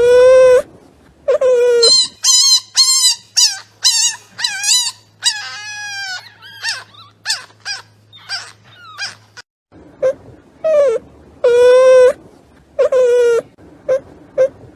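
Newborn puppies crying: short, repeated whining squeals. Between about two and nine seconds in come higher, thinner squeaks, then the lower cries return.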